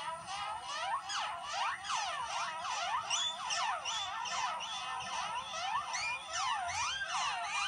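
Electronic synthesizer playing many overlapping pitch glides. Each tone slides up and down within about a second, making a dense, continuous tangle of high sweeping tones.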